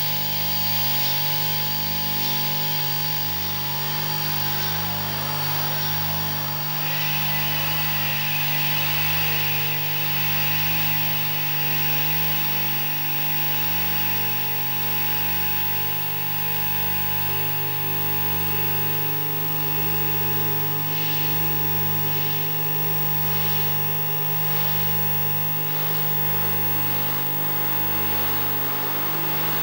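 Experimental electronic noise made on analog machines: a steady drone of low hum, fixed tones and hiss, whose high band shifts abruptly about seven seconds in, with soft pulses about once a second later on.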